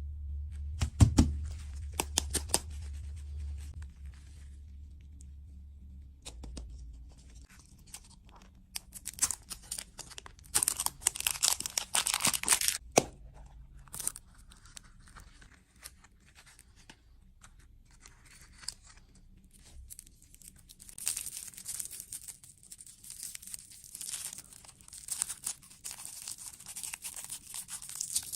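Snack packaging being torn open and crinkled, in irregular bursts of tearing and crackling with short pauses between them.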